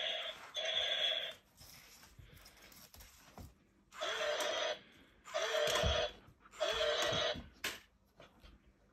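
Robot dinosaur toy whirring in short bursts of under a second each: one near the start, then three more in quick succession after a pause of a few seconds.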